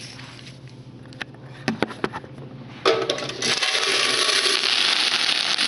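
A stack of paper dollar bills being handled: a few light clicks and taps, then from about three seconds in a steady, loud rustling of paper that lasts to the end.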